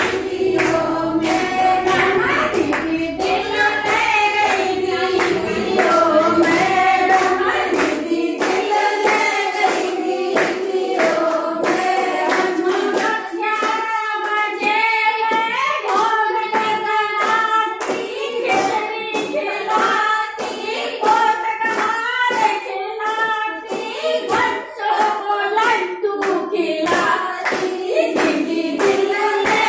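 A group of women singing a song together in unison, keeping time with steady rhythmic hand-clapping.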